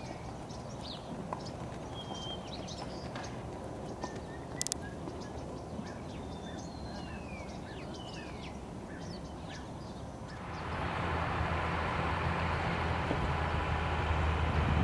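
Small birds chirping and whistling over a low outdoor background, with a single click partway through. About ten seconds in, a steady, louder rumble of wind noise takes over and covers the birds.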